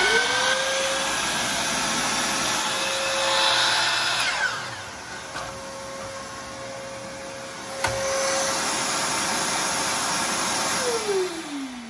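A DeWalt 12-inch sliding miter saw and a Ridgid shop vacuum run together. About four seconds in the saw is switched off and the sound drops. The shop vacuum, switched by an iVAC automatic tool-activated switch, runs on for about six seconds, then shuts off and winds down in pitch near the end.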